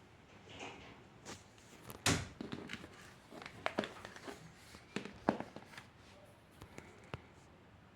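Handling noises from unboxing vinyl records: a sharp knock about two seconds in, then a few lighter knocks and rustles of packaging.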